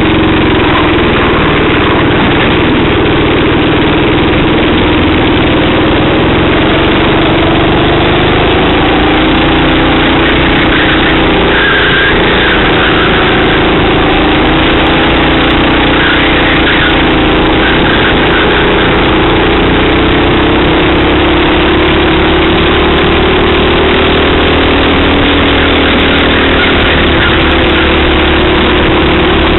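Racing kart engine running loud and steady, heard from the kart itself, its revs rising and falling gently as it drives round the circuit.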